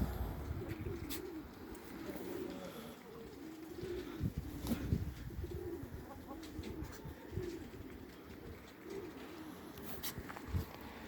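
Farm birds making soft, low, repeated cooing calls, with a few short knocks in between.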